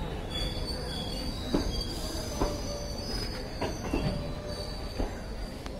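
Blue passenger coaches of the Chhapra–Mathura Express rolling past along the platform as the train comes in: a high-pitched wheel squeal that wavers in pitch, with about six irregular clacks of wheels over rail joints.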